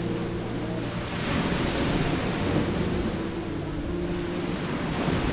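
Sea surf washing onto the shore, a steady rushing that swells about a second in.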